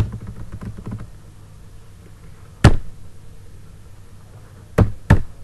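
Computer keyboard keys being pressed: a quick run of light taps in the first second, then single sharp clacks about two and a half seconds in and twice near the end.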